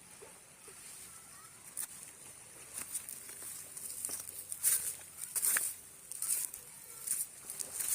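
Footsteps crunching on loose ground, one crisp step about every second from about two seconds in, over a faint steady high hiss.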